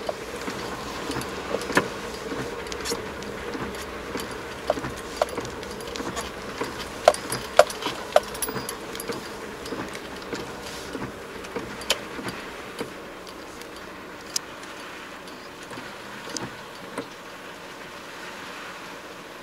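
Car interior while driving in the rain: a steady low rumble of engine and wet road, with scattered sharp ticks of raindrops striking the windshield and roof. The rumble fades near the end as the car slows to a stop.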